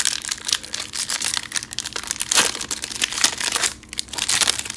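Foil wrapper of a football card pack crinkling loudly as it is torn open and handled.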